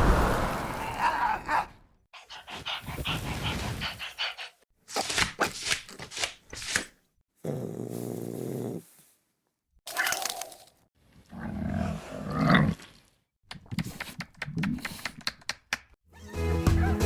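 Dog vocalisations in a string of short clips, each cut off abruptly by a brief silence. A steady musical pattern starts near the end.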